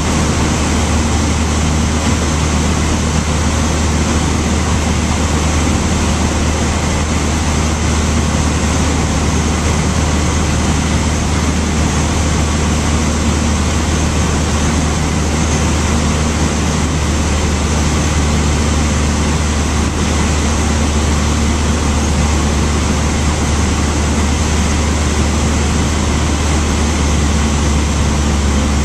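Cessna 152's four-cylinder Lycoming engine and propeller running steadily in flight: a constant low drone with an even rushing noise, heard inside the small cabin.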